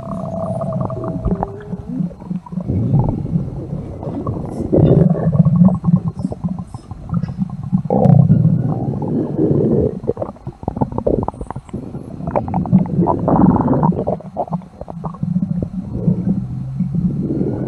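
Human stomach rumbling and gurgling in long, uneven surges, with pitched, groaning gurgles now and then; the loudest surges come about five, eight and thirteen seconds in.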